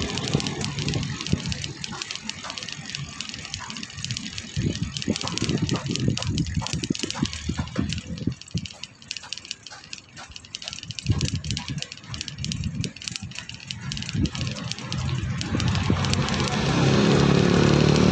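Rattling and wind-buffeting noise from riding along a rough concrete road, with no steady engine sound for most of it. Near the end a motorcycle engine rises and stays loud.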